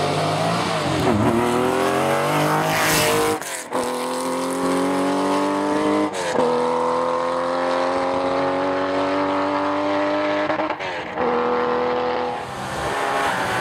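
Porsche rally car engine pulling hard under full throttle, its pitch climbing steadily in each gear and dropping at three quick upshifts. About three seconds in there is a short rush of noise, likely tyres sliding.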